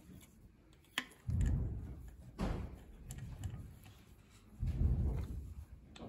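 Gloved hands handling a compression tester's hose in the spark plug hole of a Skoda CWVA 1.6 engine, unscrewing it to move it to the next cylinder. A sharp click about a second in, then a few dull knocks and rubbing sounds.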